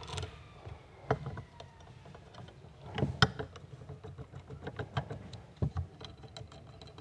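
Irregular light clicks and knocks of metal parts and thumb screws being handled and fitted onto a hand-operated flooring push/pull jack, setting it back to pull mode.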